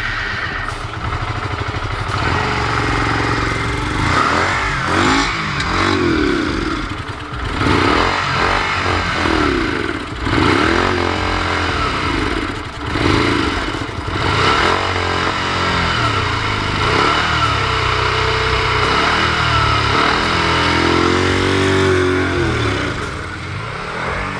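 Honda Shadow VT125C's small air-cooled V-twin engine running, its revs rising and falling again and again. The owners suspect cracked intake manifolds letting in a vacuum leak.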